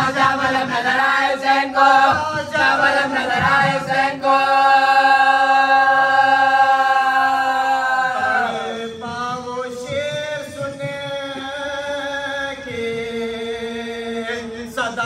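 Voices chanting a Shia mourning lament (noha), with a long held note in the middle that falls away, over a steady low drone.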